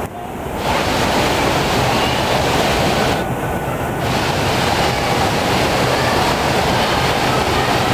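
Steady rush of water and echoing din of an indoor water park, with water pouring from slides and fountains into the pool. The hiss dulls briefly at the start and again about three seconds in.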